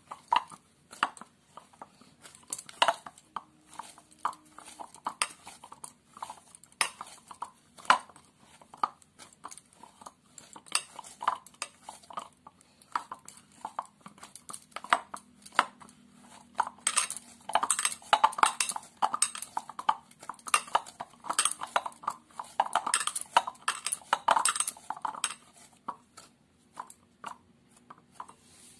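Wheat-flour dough being kneaded by hand in a white bowl: irregular knocks and clinks as the hand works the dough against the bowl and the bowl shifts on a hard floor, busiest and loudest in the second half.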